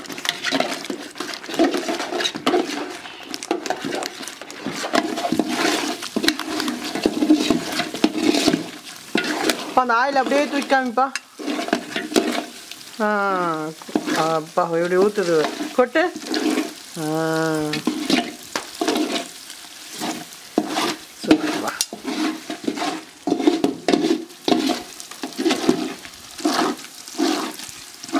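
Metal ladles scrape and stir in a large aluminium pot of browned coconut residue, as coconut milk is cooked down into homemade coconut oil: a busy run of irregular scrapes and knocks. A few drawn-out, wavering calls break in around the middle.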